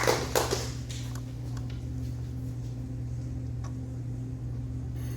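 Steady low electrical hum, with a quick cluster of sharp clicks or knocks in the first half-second and a few faint ticks later.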